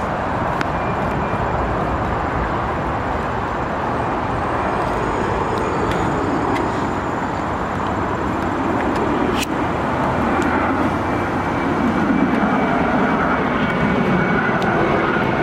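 Airplane flying overhead: a continuous rushing drone that grows a little louder in the second half.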